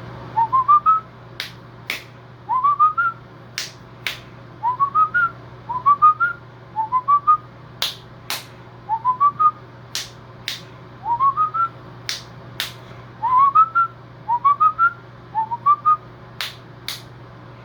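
A person whistling the same short phrase over and over: three or four quick notes stepping upward, repeated about every one to two seconds, a tune for a pet cockatiel to learn. Sharp clicks fall between the phrases.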